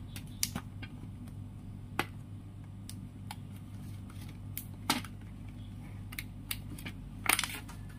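Disposable aluminium foil trays being handled and pulled apart from a nested stack: scattered sharp crinkles and clicks of thin foil, the loudest about seven seconds in, over a steady low hum.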